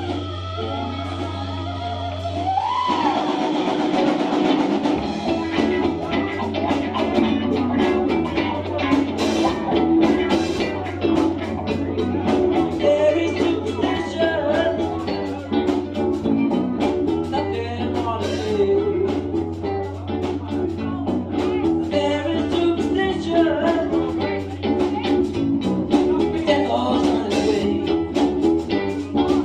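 Live rock band playing: electric guitars, bass guitar and drum kit, with a singer at the microphone. A held chord rings for the first few seconds, then the full band comes in with drums.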